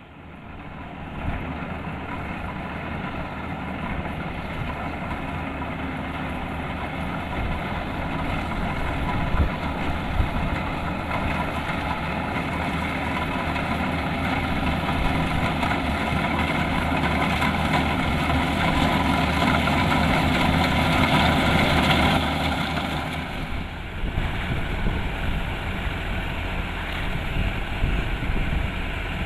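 Kubota DC-105X combine harvester running while harvesting rice, its diesel engine and machinery giving a steady drone. The drone grows louder for about twenty seconds, then drops off suddenly and carries on more quietly.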